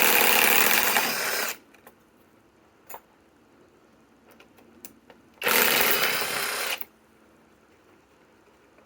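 Kobalt 3/8-inch right-angle cordless impact wrench hammering as it backs out a LedgerLok structural screw. It stops about a second and a half in, a few light clicks follow, and a second short run of hammering comes about five and a half seconds in.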